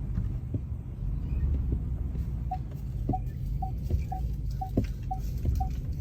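A short electronic beep repeating about twice a second over a low, steady rumble, with a few soft knocks.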